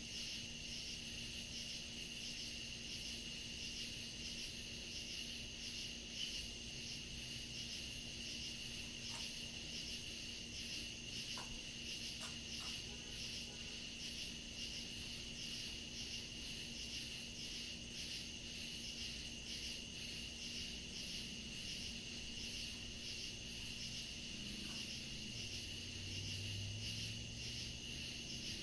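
Night chorus of crickets and other insects: a steady high trill with a pulsing chirring above it, over a faint low hum.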